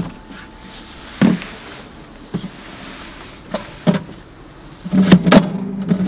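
Plastic knocks from a SetPower RV45/60 dual-zone fridge being handled: a few separate knocks, then a louder clatter and scrape about five seconds in as the removable plastic divider is lifted out of the fridge.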